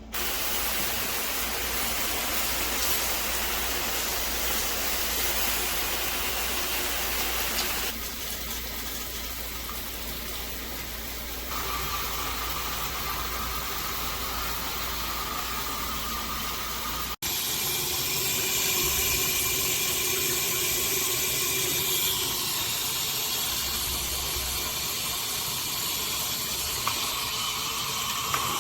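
Water spraying from a handheld/rain shower head, a steady hiss. The spray's sound changes about eight and about twelve seconds in. It breaks off for an instant near seventeen seconds, then carries on with a somewhat different tone.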